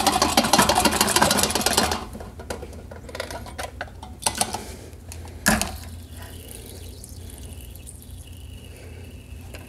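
Brewing tools being sloshed and swished in a bucket of Star San sanitizer solution for about two seconds. After that come a few sharp clinks and knocks as the equipment is handled.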